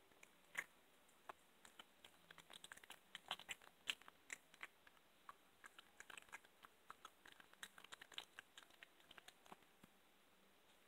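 Cat chewing and crunching raw Cornish hen rib bones: faint, irregular wet clicks and crackles, coming thickest through the middle.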